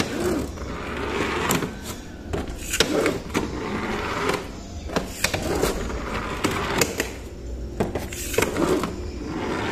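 Battery-powered Thomas toy engine running on a plastic toy track: a steady small-motor whirr with irregular clicks and knocks from the wheels and track.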